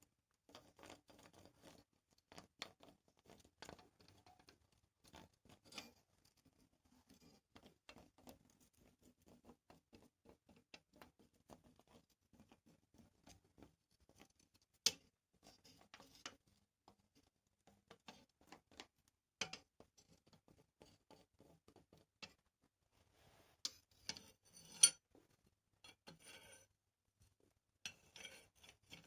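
Faint scattered clicks, light taps and scrapes of small metal work being handled, with a sharper click about halfway through and another near the end.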